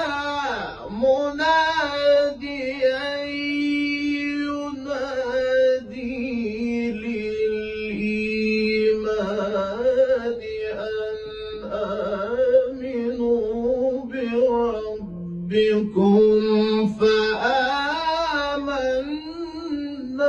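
A man reciting the Quran in the melodic mujawwad style: long, ornamented sung phrases with held, wavering notes, broken by short pauses for breath.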